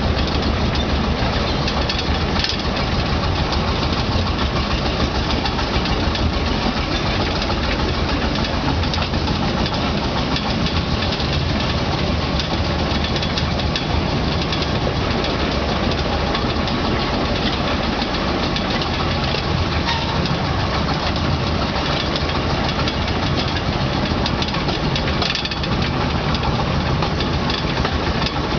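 Engine of a 600 mm field-railway locomotive running steadily as the narrow-gauge train moves, heard from an open passenger car, with two brief knocks, one near the start and one near the end.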